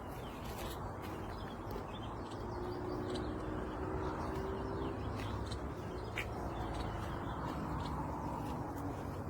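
Scattered short bird chirps over a steady background hiss.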